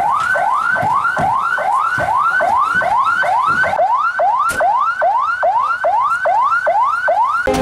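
Ambulance's electronic siren sounding a fast yelp: a quickly rising tone that drops back and repeats a little over twice a second. It cuts off near the end.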